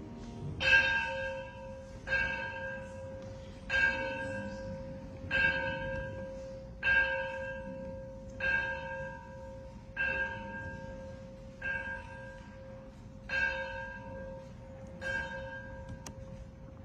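A church bell tolled ten times, one strike about every one and a half seconds, each stroke ringing on into the next.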